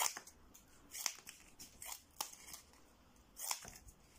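Freshly sharpened scissors snipping through thin cardboard: a series of short, crisp cuts, about one or two a second, the strongest one near the end. The blades cut easily without binding.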